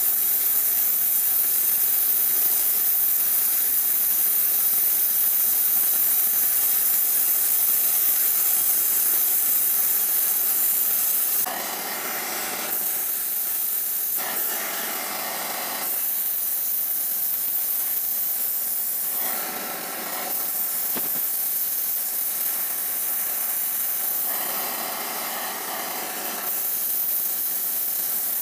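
Oxy-acetylene flame-spray torch hissing steadily as it sprays a metal build-up onto a worn shaft. The hiss drops a little about eleven seconds in, then swells four times for a second or two each.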